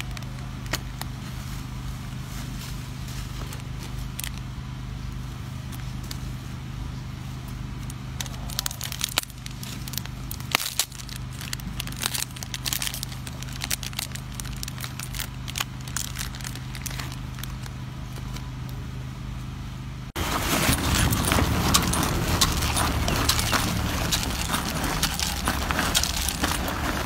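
Crackling and rustling as a macaque rummages through a cloth bag, with scattered sharp clicks over a steady low hum. About 20 seconds in, the sound cuts suddenly to louder, denser rustling and clicking.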